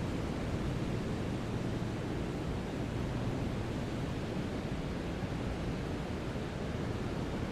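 Steady brown noise: an even, deep rushing hiss weighted toward the low end, with no changes or events.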